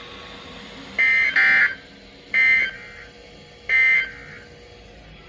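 Three short bursts of NOAA Weather Radio SAME digital data tones, a harsh buzzy warble, about a second and a half apart. They are the end-of-message code that closes the flash flood warning, with faint radio hiss between them.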